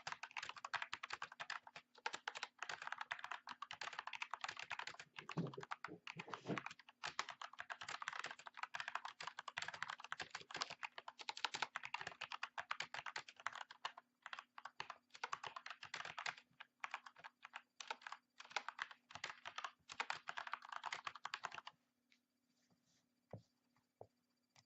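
Fast continuous typing on an Ajazz AK45 mechanical keyboard with Kailh BOX switches, with a few deeper, heavier key strokes about five to six seconds in. The typing stops near the end, leaving only a few faint ticks.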